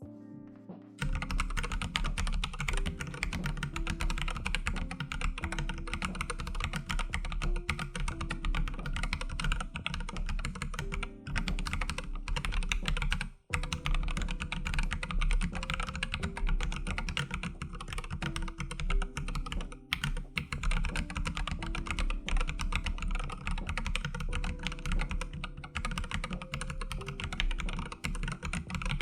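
Continuous fast typing on an AKKO 3108 RF full-size mechanical keyboard fitted with Akko CS switches: dense keystroke clacks with a short pause about halfway through. Soft background music plays underneath.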